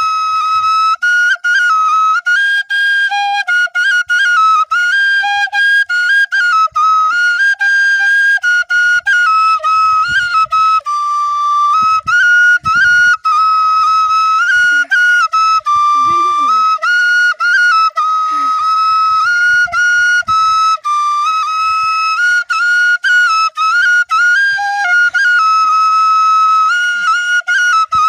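Bansuri (bamboo flute) playing a folk tune that moves stepwise among a few close notes, broken by many short gaps between notes and phrases.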